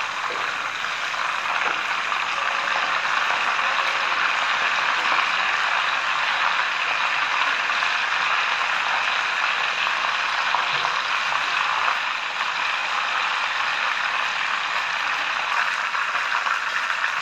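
A whole chicken shallow-frying in hot oil in a pan: a steady sizzle.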